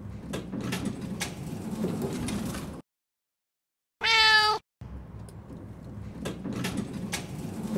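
Sliding glass door rolling along its track with a low rumble and a few clicks, then a single loud cat meow about four seconds in, followed by the same sliding-door rumble again.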